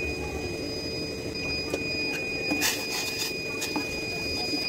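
A metal spoon stirring sugar syrup in a stainless-steel saucepan, clinking and scraping against the pan several times in quick succession through the middle. Underneath is a steady hiss and a faint, steady high tone.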